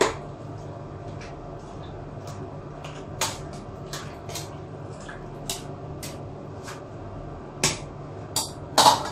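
Metal tongs clinking and knocking against a cooking pot while vegetables are stirred: irregular sharp clicks over a steady low hum, with a few louder knocks near the end.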